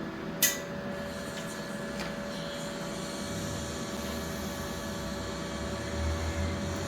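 Steady hiss and hum of a TIG welding arc laying a buttering pass on molybdenum steel, with a sharp click about half a second in.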